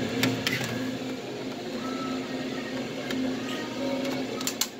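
Electric nacho-cheese dispenser pump running steadily as queso is pumped onto a tray of tortilla chips, with a few light clicks from the plastic tray being handled; faint music underneath.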